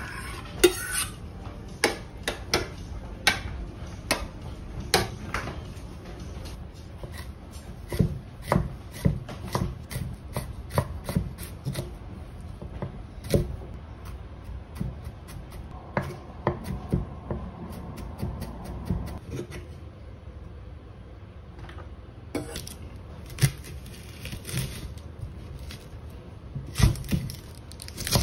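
Chef's knife chopping ginger and cutting an onion on a thick round wooden chopping board: irregular sharp knocks of the blade on the wood, with a quieter pause partway through.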